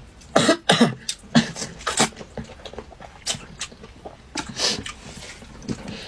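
A person slurping noodles from a bowl of spicy noodle soup, in a run of irregular, sharp sucking slurps, loudest in the first couple of seconds.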